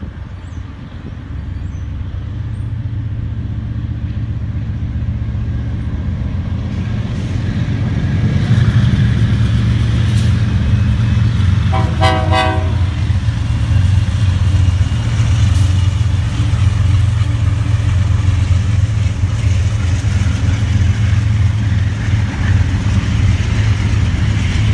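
BNSF freight train's diesel locomotives passing close, a heavy low rumble that builds over the first eight seconds and stays loud as the freight cars roll by. About halfway through, a short pulsing toot of a warning signal sounds.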